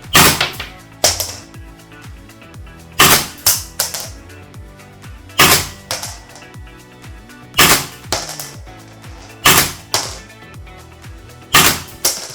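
Rare Arms AR-15 gas blowback airsoft rifle firing in quick pairs and triples, a group about every two to three seconds, each shot a sharp crack with a short ringing tail. Background music plays underneath.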